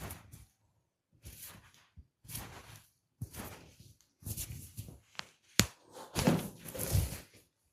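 Close-miked hand massage: a series of short rubbing and patting strokes of hands on skin and hair, growing louder in the second half, with one sharp click a little past halfway.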